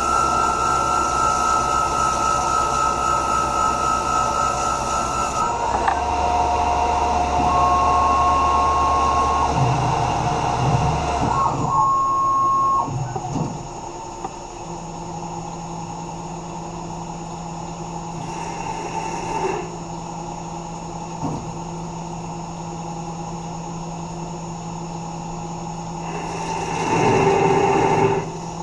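Tormach 1100 CNC mill running. Its spindle whine shifts to new steady tones about five seconds in. About thirteen seconds in the machine drops to a quieter steady hum, and two short bursts of noise follow near the end.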